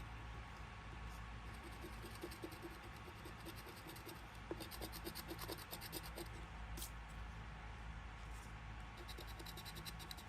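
Coating being scratched off a scratch-off lottery ticket in short runs of quick strokes, faint, with the runs busiest about halfway through and again near the end.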